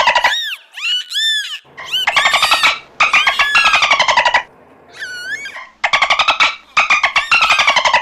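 Dolphin calling: buzzy, rapidly pulsed squawks alternating with short high whistles that arch up and down, one call after another with brief gaps.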